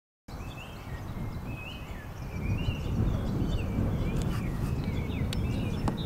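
Wind on the microphone with birds singing a short chirping phrase over and over, and a few sharp clicks in the second half, among them the wedge striking the golf ball.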